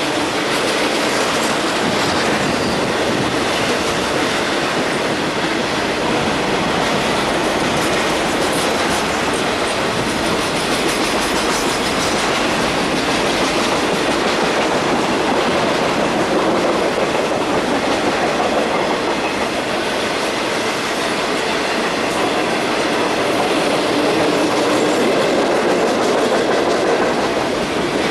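Double-stack container cars of a freight train rolling past at a steady speed: the continuous noise of steel wheels on the rails.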